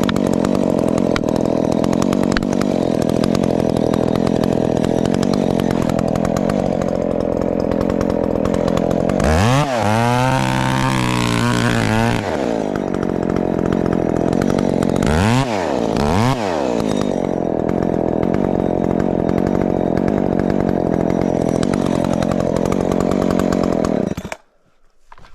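Modified Husqvarna 372 XP two-stroke chainsaw running at full throttle cutting wood. About nine seconds in and again around fifteen seconds it drops to idle and revs back up. It shuts off near the end.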